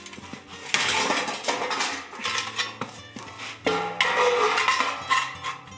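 Metallic clinking and clanking as beaten-bronze sculpture pieces and tools are handled and bolted together, over background music.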